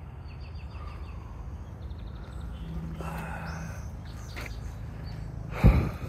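Low steady rumble on a phone's microphone, with a few faint, high, quick chirps in the first second and again about two seconds in, then a single loud thump just before the end.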